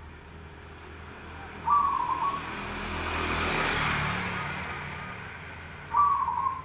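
Zebra doves (perkutut) cooing: two short trilled coo phrases, about two seconds in and again near the end. Between them a broad rushing noise swells and fades.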